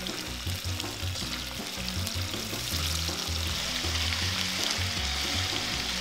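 Food sizzling steadily in a hot frying pan.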